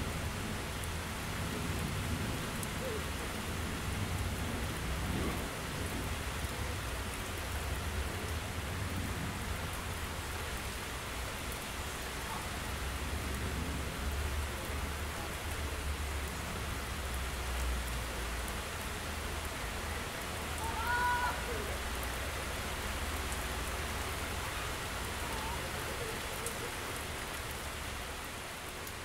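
Steady rain falling in a small thunderstorm, with low rolling thunder underneath that is strongest around the middle. A few short chirps come a little past two-thirds of the way in.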